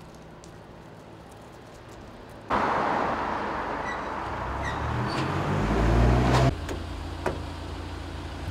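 Small engine of a motorised wheelbarrow (micro dumper) running. After a quiet low rumble it turns suddenly louder about two and a half seconds in and rises in pitch as it revs, then drops abruptly to a steady low idle hum near the middle.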